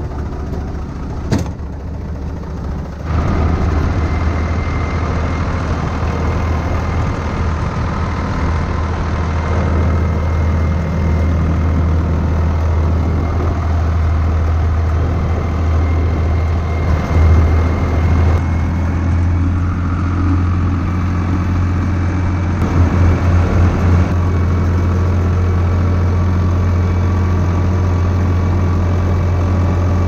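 IHC 633 tractor's diesel engine running steadily with a deep, even hum. There is a click about a second in, and the engine gets louder about three seconds in.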